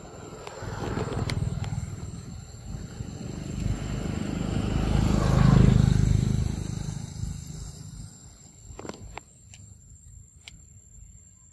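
Macaque's fur and body brushing against the phone's microphone: a low, rumbling rustle that swells to loud about five seconds in, then fades. A few faint clicks follow near the end.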